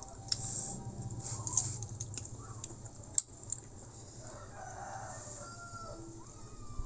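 A rooster crowing, starting about two-thirds of the way in with a held note that bends near the end. A few short, sharp clicks sound earlier, the loudest about halfway through.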